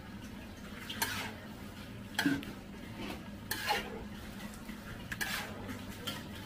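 Apritada stew being stirred in a large cooking pot: a utensil scraping and knocking against the pot at irregular intervals, roughly once a second.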